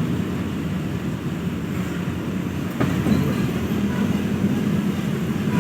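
A large bus's diesel engine running with a low, steady rumble. A single sharp knock comes about halfway through, after which it gets slightly louder.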